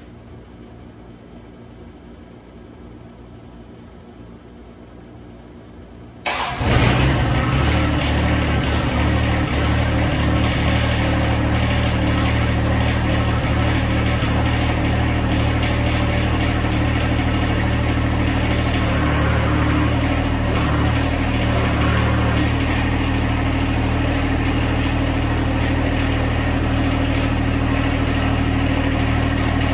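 John Deere 1025R compact tractor's three-cylinder diesel engine starting about six seconds in, catching at once and then idling steadily.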